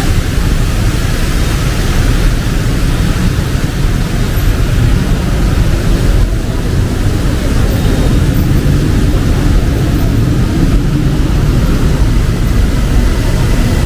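Steady noise of busy city street traffic, mostly a low rumble with a hiss on top and no single event standing out.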